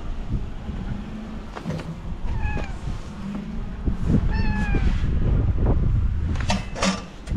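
A stray cat meowing twice, short calls that fall in pitch, over wind rumbling on the microphone. A few sharp clicks come near the end.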